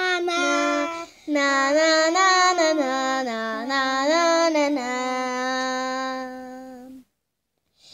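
A girl singing alone without accompaniment, holding long drawn-out notes that slide slowly up and down. She stops about seven seconds in.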